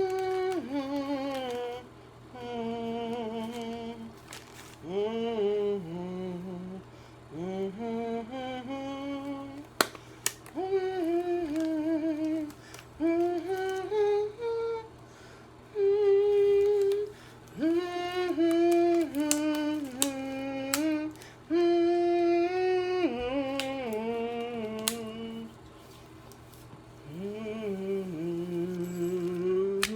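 A woman humming a tune in short phrases with a wavering pitch, pausing between them.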